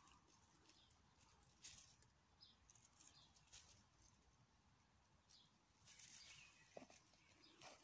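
Near silence, with faint scattered rustles of raspberry leaves and canes being brushed and pushed aside, a little busier near the end.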